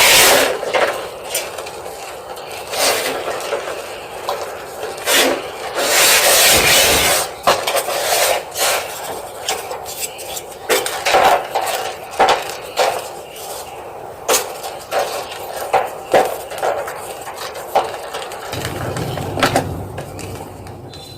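Gym chalk being crushed, crunching and crumbling in quick irregular crackles, with a longer stretch of continuous crunching about six seconds in.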